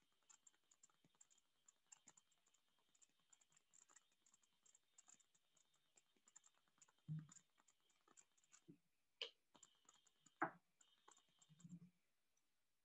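Near silence with faint, rapid clicking throughout and a few louder soft knocks and thumps in the second half.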